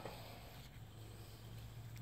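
Quiet room tone with a faint steady low hum; no distinct clinks or knocks.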